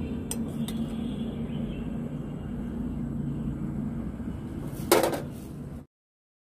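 Steady low rumble of a gas stove burner under a pan of milk simmering, with two light clicks of a spoon on the pan early on. A sharp loud click comes about five seconds in, and then the sound cuts off abruptly.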